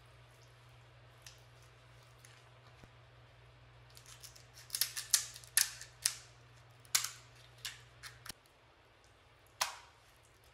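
Kitchen shears snipping through a lobster tail's shell: a series of sharp snips beginning about four seconds in, then one more near the end.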